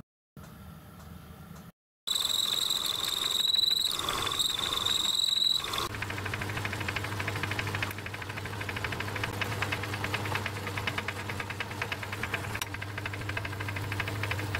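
Metalworking lathe running with its chuck spinning. After a quiet start, a steady high whine holds for about four seconds; from about six seconds in, the lathe runs with a steady low hum and a fast, even ticking from the drive.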